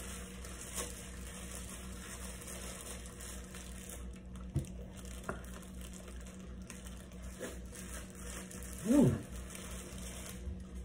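Quiet room tone with a steady low hum, a few faint scattered clicks, and one short pitched sound about nine seconds in that falls in pitch.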